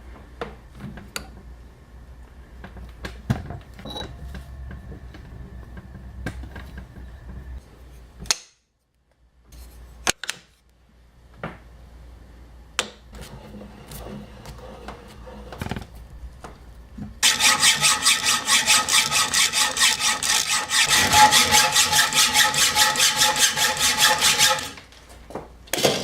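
Scattered handling clicks on a workbench, then a hand tool rasped rapidly back and forth on a workpiece for about seven seconds, each stroke carrying a steady ringing pitch.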